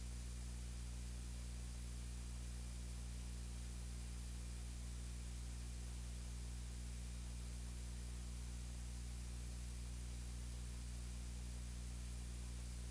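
Steady electrical hum with a constant hiss and no voice: a low buzz with evenly spaced overtones that never changes.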